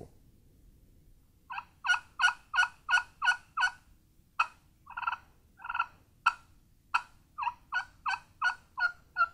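Turkey pot call, an all-plastic call with sound holes in its top surface, stroked with a striker to imitate hen turkey yelps. After a short pause comes a quick run of about seven yelps at roughly three a second, then a few spaced single notes, then another fast run of yelps near the end.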